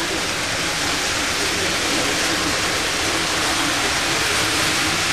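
Model trains running on the layout's track: a steady whirring, rolling noise with a faint wavering motor whine beneath it.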